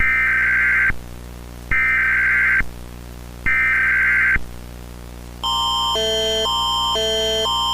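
Emergency alert tones: three short bursts of SAME digital header data, each about a second long with a second's gap between them. About 5 seconds in, the Canadian Alerting Attention Signal begins: a steady high tone under two-note chords that swap every half second.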